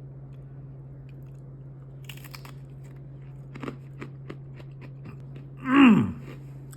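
A person crunching and chewing a crisp bite of food, with scattered crunches over a few seconds. Near the end comes one loud appreciative 'mmm', falling in pitch.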